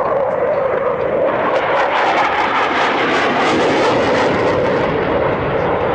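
Dassault Mirage 2000's single SNECMA M53 turbofan in afterburner during a display pass: loud jet noise with a crackle that builds over the first couple of seconds and eases a little near the end.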